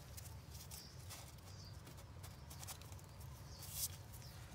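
Faint handling noise around the carburetor's vacuum hoses: scattered light clicks and taps, and a brief rustle about four seconds in, over a low steady hum.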